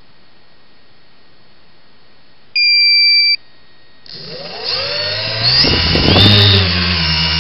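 The KK2 flight controller's buzzer gives one steady high beep, under a second long, as the board arms. About a second and a half later the X900 tricopter's brushless motors spin up: a rising whine that grows louder and levels off into a steady hum.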